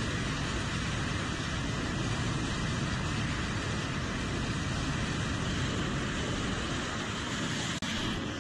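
Jet engines of an F/A-18-family fighter running at high power on an aircraft carrier's catapult before launch: a loud, steady jet roar with deep rumble. It breaks off for an instant near the end, then goes on.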